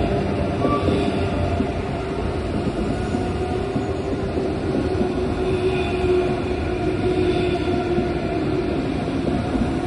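Experimental ambient tape piece: a dense, steady rumble with a few sustained tones that drift slowly in pitch.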